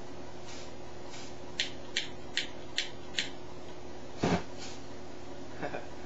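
A hand-held lighter being flicked again and again, five quick sharp clicks about two and a half a second, with fainter ones before them. A louder, fuller short burst follows a little after four seconds, over a steady low hum.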